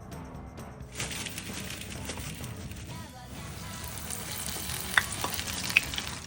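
Food sizzling in hot oil in a pan, starting about a second in, with two sharp pops from the oil near the end.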